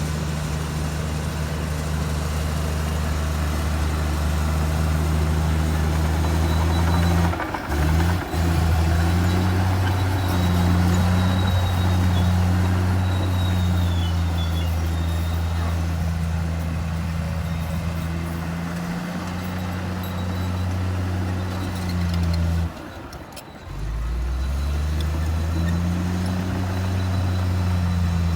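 Heavy diesel engine of earthmoving machinery running under load, a steady low drone whose pitch shifts up and down. The sound drops out briefly twice, about a third of the way in and again near the end.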